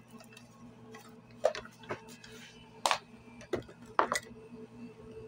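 A handful of sharp knocks and clinks as a utensil and bowl of whipped egg-white meringue are handled against each other and the table, over a faint steady electrical hum.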